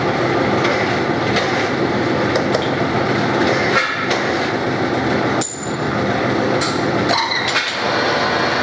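Metal lathe running and turning a stack of motorcycle front sprocket blanks on a mandrel, the tool cutting steel with a dense, steady machining noise. A few short, sharp metallic clinks come through it.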